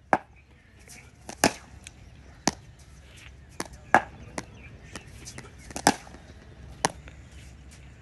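Sharp knocks of cricket net practice, a cricket ball striking the bat and bouncing on the concrete pitch, about a dozen at uneven intervals, the loudest about a second and a half in.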